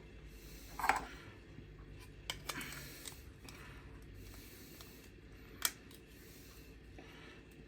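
Small plastic figure-kit parts being handled and pressed together: soft rubbing and rustling with a few sharp clicks, the loudest about a second in and another more than halfway through.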